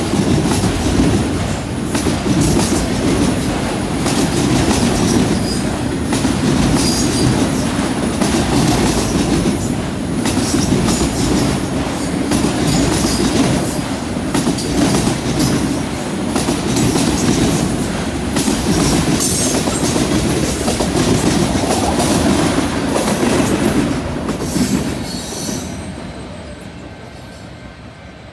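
CN freight train's cars rolling past: steady wheel-on-rail rumble with repeated clacks of wheels over rail joints and the switch. The noise fades away over the last couple of seconds as the end of the train passes.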